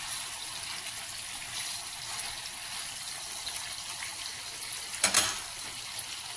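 Marinated chicken leg pieces shallow-frying in hot oil in a pan, a steady sizzle with fine crackling. There is a brief louder crackle about five seconds in.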